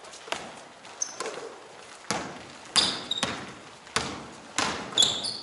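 A basketball bouncing on an indoor gym floor during a pickup game, about eight thumps at uneven spacing that echo in the hall. A few short high squeaks of sneakers on the court come with the loudest thumps, about three seconds in and near the end.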